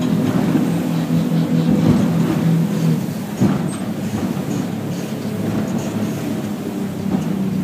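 Boat engine running steadily, heard inside the wheelhouse; its note drops and gets quieter about three seconds in, with a single knock just after.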